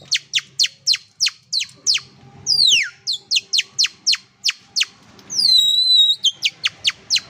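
Canary-song imitation made with a plastic macaroni snack wrapper: a quick string of high chirps, each sliding sharply down in pitch, about three a second. It is broken twice by a longer whistled slide, about two and a half seconds in and again near six seconds.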